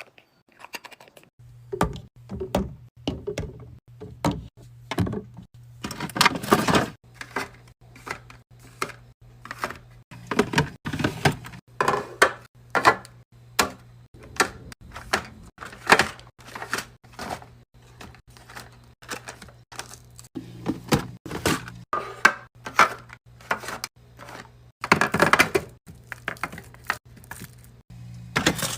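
Food containers, bottles and packaging being handled and set down in a refrigerator: a string of taps, clacks and knocks, one or two a second, with two longer rustling bursts. A steady low hum runs underneath.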